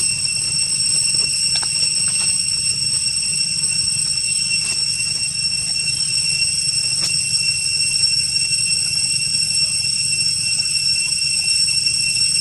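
Steady, unbroken high-pitched drone of insects, like a cicada chorus, over a low hum.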